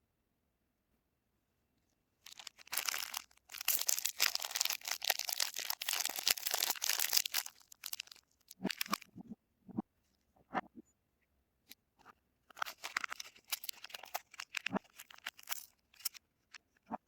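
A soap wrapper being torn and crinkled open by hand: a dense spell of crinkling and tearing starts about two seconds in and lasts about five seconds, followed by scattered short handling sounds and a second, shorter spell of crinkling.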